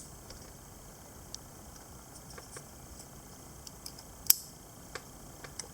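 Scattered small sharp plastic clicks from unlatching the steering-wheel airbag connectors and pulling their centre locks, with the loudest click about four seconds in.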